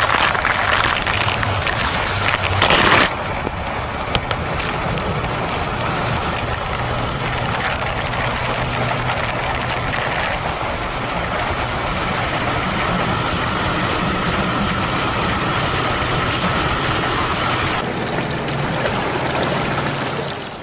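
Motorboat engine running steadily at speed, under the rush of wind and water spray from the hull cutting through the river, with a louder gust of spray about three seconds in.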